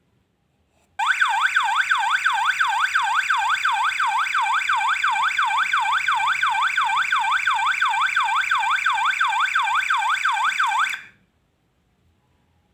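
Home-made laser tripwire alarm sounding its electronic siren: a loud, rapidly warbling tone sweeping up and down about three times a second, for about ten seconds, then cutting off suddenly.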